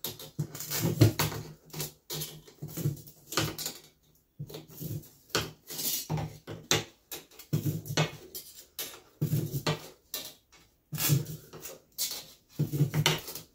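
Metal snips cutting a row of slots into the turned edge of an aluminium Zee bar carpet trim: a short run of sharp metallic snips and clicks about every second or so. These are relief cuts that let the profile flex around a curve.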